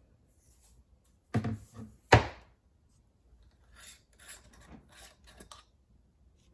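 PVC pipe fittings and a can of primer handled on a workbench: a few knocks, the loudest a sharp clack about two seconds in, then a run of short rubbing strokes as primer is daubed onto the pipe.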